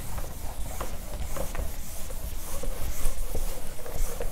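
Whiteboard eraser rubbing marker writing off the board in repeated strokes.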